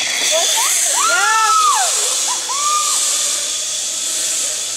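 Zip line trolley running along the steel cable, a steady high-pitched hiss that sets in suddenly and fades a little toward the end. A few short wavering tones that rise and fall come in around the middle.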